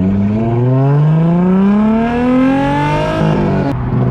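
Turbocharged VR6 engine revving up under acceleration, its pitch climbing steadily for about three seconds. The pitch then breaks and drops, and a steady engine note follows.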